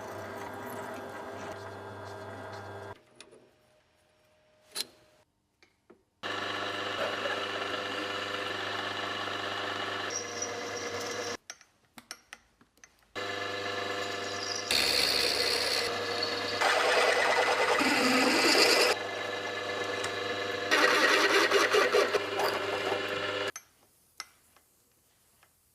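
A small electric power tool running in several separate stretches, with clicks in the short quiet gaps between them. In the later stretches the sound turns louder and harsher, as when the tool bites into the material.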